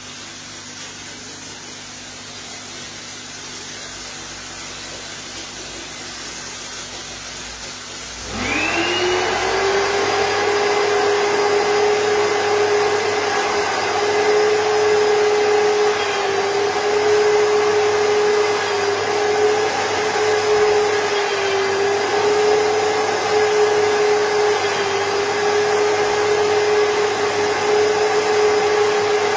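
Cleanvac ISV 2800 S steam upholstery cleaner: a quieter steady hum for about the first eight seconds, then its twin-fan vacuum motor switches on, spinning up with a quickly rising whine and running steadily and loudly, its pitch wavering slightly as the wand works the fabric.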